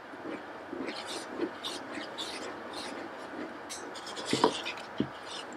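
Wooden spoon stirring pureed strawberries and powdered pectin in a saucepan: a quick run of soft scrapes against the pot, with two sharper knocks of the spoon on the pot near the end.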